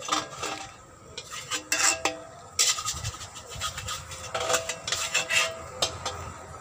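Metal spatula scraping and knocking against a steel wok: a run of clanks and scrapes, several with a short metallic ring.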